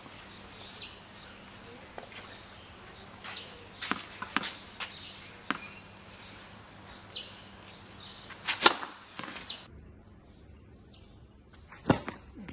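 A tennis ball bounced several times on a hard court, then struck hard by a racquet on a serve, the loudest crack a little past the middle. After a cut, another serve is struck with a sharp crack near the end.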